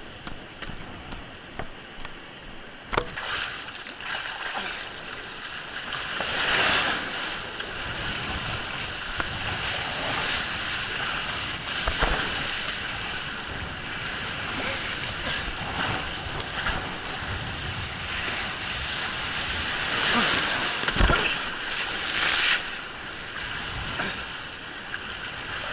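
Wind buffeting the microphone and water rushing and splashing past a windsurfing board under way, with louder surges of spray. A few sharp thumps break through the rush.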